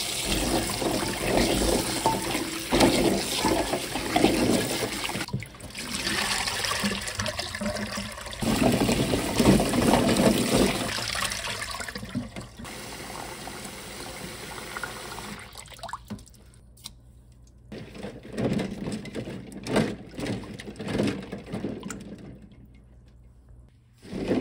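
Tap water running into a stainless steel bowl of raw chestnuts in a kitchen sink, a steady rush of water. After about fifteen seconds it gives way to separate splashes and sloshes as hands stir and rub the chestnuts in the water.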